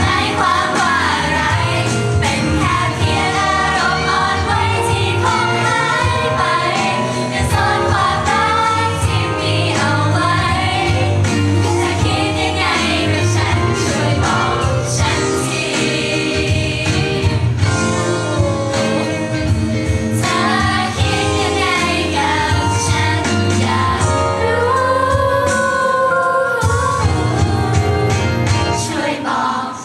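A female idol group singing a song live into handheld microphones over backing music, heard through a PA.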